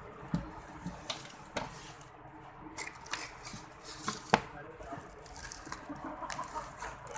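Scattered light clicks and knocks of objects being handled, with one sharper knock about four seconds in.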